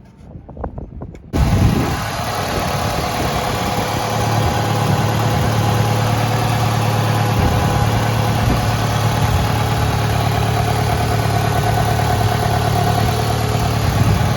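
Dodge SRT-4's turbocharged four-cylinder engine starting abruptly about a second in and then running steadily.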